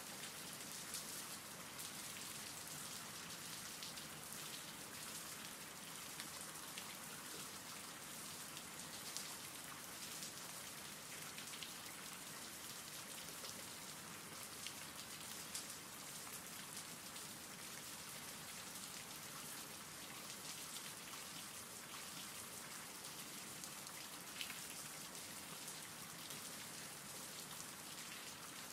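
Steady rain falling: a continuous hiss with louder individual drops pattering here and there.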